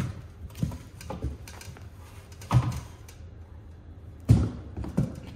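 Handling noise from lifting a titanium exhaust system beside its cardboard box: about six dull thuds and knocks, the loudest about two and a half and four and a half seconds in.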